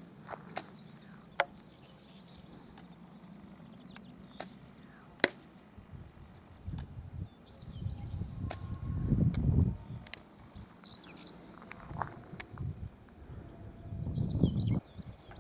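Insects chirping in a fast, even trill, with wind gusting on the microphone. Two sharp clicks stand out, about a second and a half and five seconds in.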